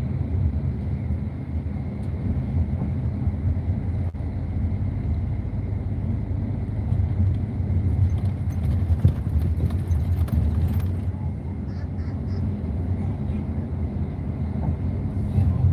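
Steady low rumble of a moving intercity coach, its engine and road noise heard from inside the passenger cabin, with light rattling clicks around the middle.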